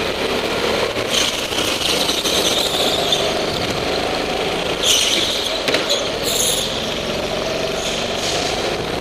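Go-kart engines running at racing speed, their pitch rising and falling through the corners, with brief high tyre squeals about five and six seconds in.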